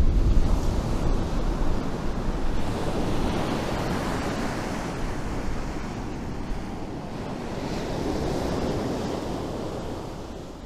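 Sea surf breaking and washing up a sandy beach, the rush of the waves swelling and easing, with strong wind buffeting the microphone as a low rumble.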